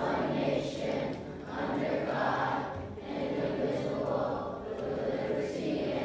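Many voices singing together as a group, rising and falling in phrases of about a second or so.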